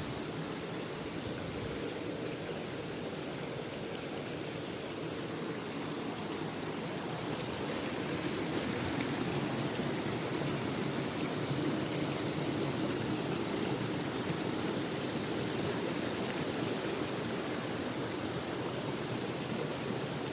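Waterfall: a steady rush of falling water, growing a little louder about eight seconds in.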